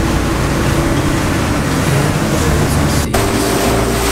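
Motorboat running at speed: a steady engine drone mixed with the rush of wind and spray off the hull. About three seconds in there is a brief break, after which the engine hum continues on a slightly different note.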